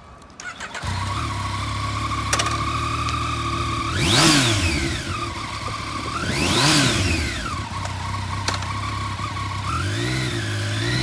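2015 Yamaha FZ-09's 847 cc inline three-cylinder engine cranked and started, then idling steadily. It is revved twice, each rev rising and falling over about a second, with a short blip near the end.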